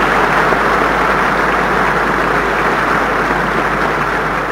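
Large audience applauding in a big hall, a dense steady clatter of many hands that eases off near the end.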